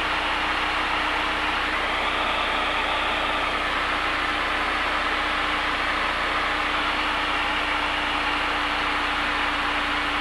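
Steady drone of a Cessna 172's engine and propeller with rushing air, heard inside the cabin in flight.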